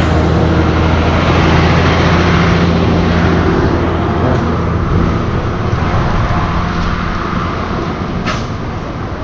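An engine running steadily with an even low hum, with a sharp click about eight seconds in.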